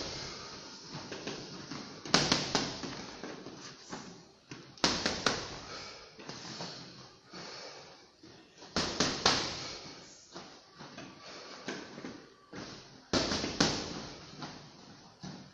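Punches landing on hanging heavy punching bags, in short flurries of several hits every few seconds with lighter hits in between.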